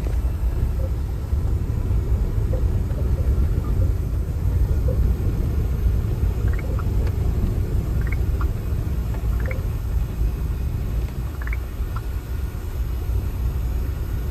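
Suzuki Every kei van driving, a steady low rumble of road and engine noise.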